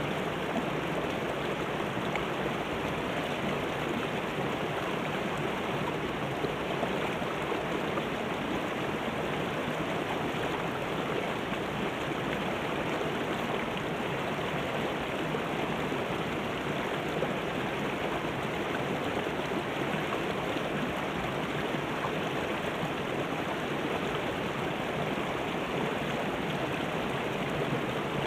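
Shallow river water rushing over rocks and small rapids: a steady, even rush.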